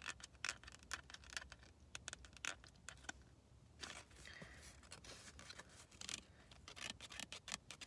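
Scratch-off lottery ticket being scratched: a run of quick, faint scraping strokes, with a short pause about three seconds in.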